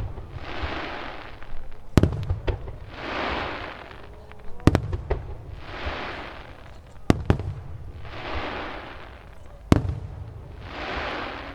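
Aerial firework shells bursting in a regular series, five sharp bangs roughly every two and a half seconds. Each bang is followed by about a second and a half of crackling hiss.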